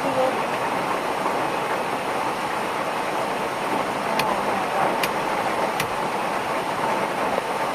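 Portable butane gas stove burning with a steady roaring hiss under a pot being brought to the boil, with three sharp clicks in the second half.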